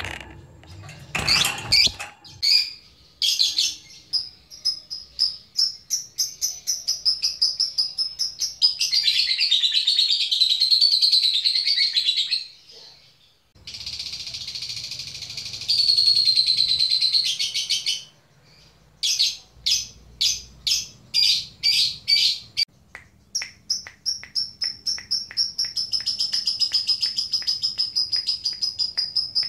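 Lovebird calling in rapid high-pitched chirps and dense chattering trills, ending in one long unbroken trill. This is the ngekek chatter of a lovebird calling out to a rival.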